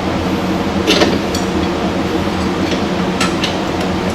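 A steady machine hum, like a shop fan or air conditioner, with a few sharp metallic clicks and clinks from hand work on exhaust brackets. The loudest click comes about a second in, and a pair follows a little after three seconds.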